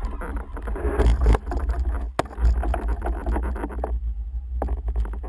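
Muffled rumble of wind and handling on a GoPro HD Hero2 in its housing, with scattered scrapes and knocks, one sharp knock about two seconds in.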